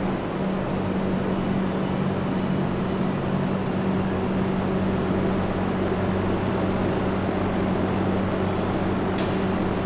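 Steady mechanical hum of hangar equipment, a constant low drone over a wash of machine noise, with a faint click near the end.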